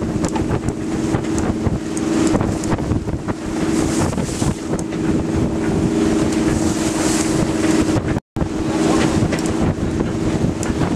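Strong wind buffeting the microphone and rough sea rushing and splashing along the hull of a sailing yacht under way, with a steady low hum underneath. The sound cuts out for a moment about eight seconds in.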